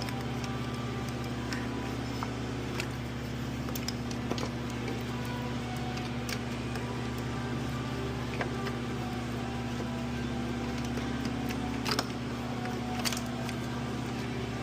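Steady mechanical hum, like a shop fan, with a few scattered clicks of hand tools on the engine during unbolting of the intake manifold.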